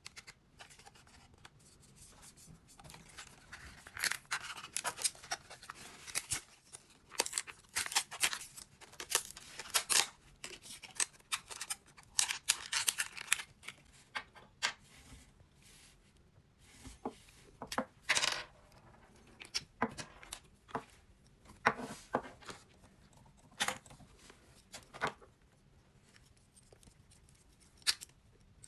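Perfume packaging being unwrapped and opened by hand: rustling and tearing for much of the first half, then scattered sharp clicks and taps.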